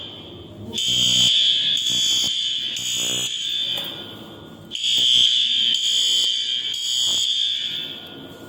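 Fire alarm sounder going off after a manual call point has been activated, sounding a high-pitched tone in long blasts of about three seconds with a short gap between them.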